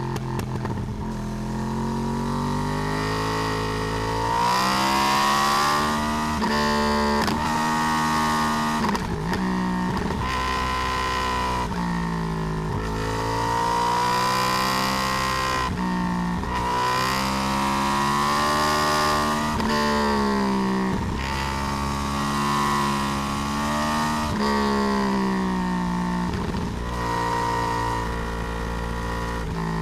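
Yamaha R1 (RN22) crossplane inline-four engine, with its uneven 'big bang' firing beat, heard from a camera on the swingarm. Its pitch climbs and drops again and again as the bike accelerates, shifts and slows.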